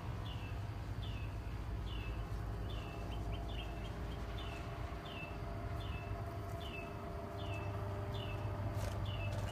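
A bird repeating one short chirp over and over, about two a second, over a steady low hum.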